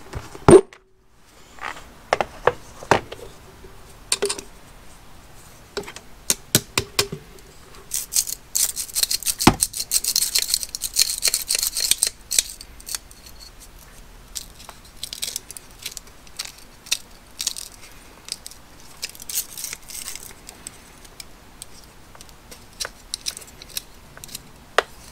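Metal wrench parts being handled and lifted out of a vibratory tumbler's dry media, with scattered clicks and clinks of metal and plastic. There is a stretch of gritty rustling about a third of the way in as the media is stirred.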